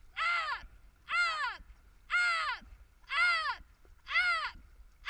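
A dragon boat caller shouting a short, falling one-syllable call about once a second to keep the paddling stroke, five calls in a row.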